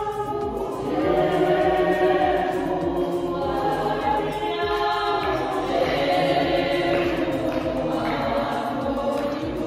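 A choir of voices singing together in harmony.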